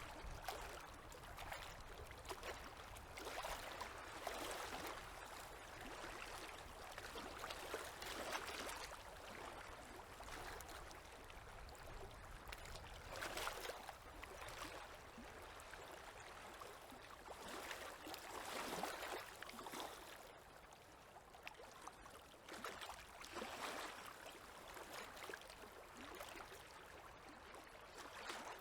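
Small river waves lapping gently, with a soft wash of water swelling and fading every few seconds.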